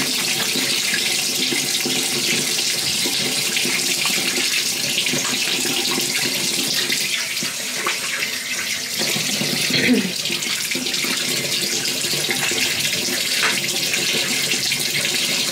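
Bathroom sink tap running steadily, water splashing into the basin, with one brief louder knock about ten seconds in.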